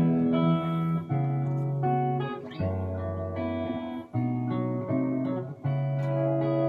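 Fender Stratocaster electric guitar playing a slow run of chords, each left ringing for about a second before the next.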